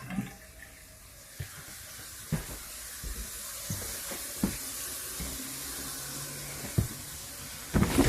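Water running steadily from an RV faucet during a plumbing test, with a few scattered knocks and taps.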